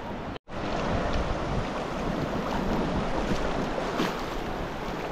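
Moving water with wind buffeting the microphone, a steady noisy rush with faint splashes; the audio drops out completely for a moment about half a second in.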